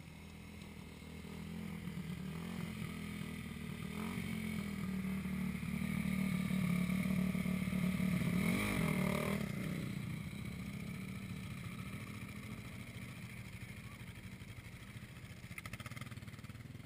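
Dirt bike engine approaching, passing closest about eight to nine seconds in with its pitch wavering as it revs, then fading away.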